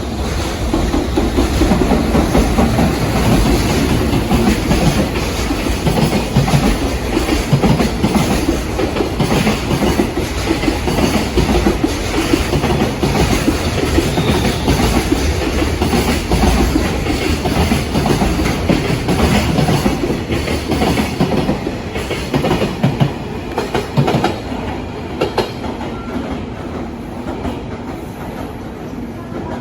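Container freight train passing close by, its wagon wheels clicking over rail joints amid a steady rumble of running gear. The sound eases off over the last several seconds.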